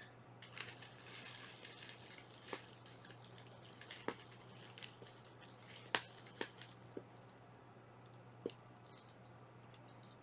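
Faint rustling and crinkling of paper packaging being worked open by hand, with scattered small clicks and taps.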